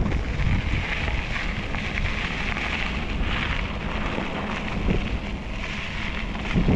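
Wind buffeting the microphone of a moving bicycle rider: a steady rushing noise with a low rumble underneath.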